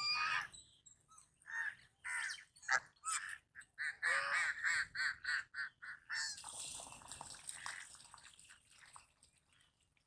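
Geese honking in a series of short calls, with a fast run of honks about four to six seconds in. A rush of hissing noise follows, fading toward the end.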